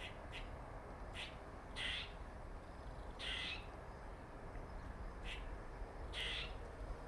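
A squirrel calling: a series of about seven short, rasping calls at irregular intervals, with the longest ones about two, three and six seconds in.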